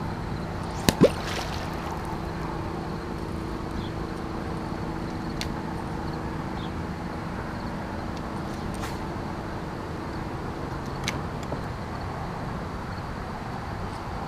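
Bow-mounted electric trolling motor running with a steady hum while the jon boat moves slowly, over water and wind noise. Two sharp knocks about a second in, and a few faint clicks later on.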